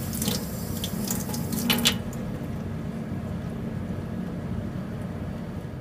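Water running from a kitchen tap into a sink, with a few splashes in the first two seconds. After that the high, bright part stops and only a steady low rumble remains.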